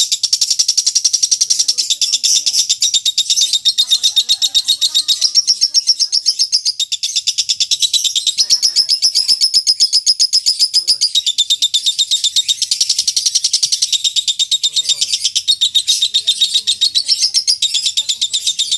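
Lovebird giving its long 'ngekek' chatter: a continuous shrill trill of very fast repeated notes, with only brief breaks.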